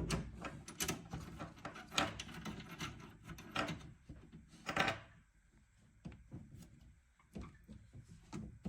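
Handling noises: a run of clicks, knocks and rubbing, thick for the first five seconds or so, then sparser.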